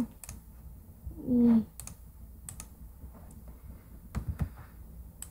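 Scattered sharp clicks of a computer mouse and keyboard, with a short hummed vocal sound about a second in.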